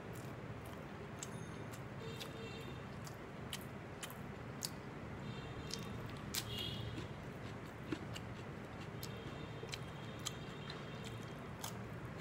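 A person eating rice and meat by hand: fingers squishing and mixing the rice on a plate and chewing, with scattered sharp little clicks over a steady low background hum.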